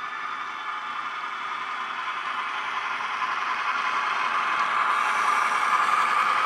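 Model V/Line P class diesel locomotive approaching, its DCC sound decoder playing a diesel engine sound through a small 22x13x6mm bass-enhanced speaker, mixed with the rattle of the model running on the track. It grows steadily louder as it nears.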